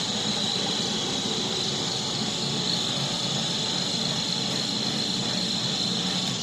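15-litre industrial blender running steadily, its motor giving a high whine over a low hum, and cutting off suddenly near the end.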